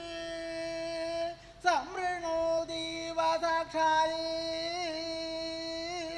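A single voice chanting a Sanskrit verse in the drawn-out Koodiyattam recitation style. It holds long notes with small wavering turns and slides sharply upward about two seconds in.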